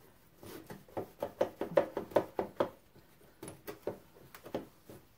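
Dry cloth rubbed briskly back and forth on a picture frame's glass pane. It comes as quick strokes, about five a second, in two runs with a short pause between them.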